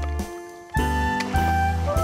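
Background music: a melody of held notes over a steady bass line, dropping away briefly just after the start and coming back in under a second.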